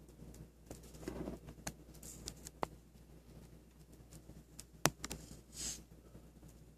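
Handling noise from a phone held close to a motorcycle engine: scattered light clicks, with a short rustle about a second in and another near the end.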